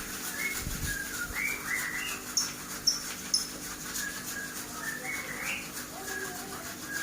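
A songbird singing in repeated short whistled notes and rising phrases, with three sharp, high chips between about two and three and a half seconds in.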